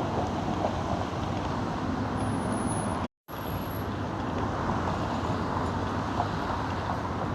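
Steady roadside highway traffic noise, a continuous rumble of passing vehicles, which cuts out completely for a split second about three seconds in.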